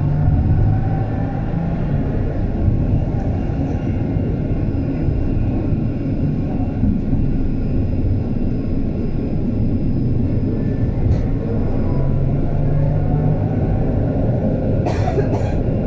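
HF 11 AC tram running along the track: a steady rumble of wheels on rails with the hum of the traction motors. A faint rising whine comes near the start, and a couple of sharp knocks come near the end.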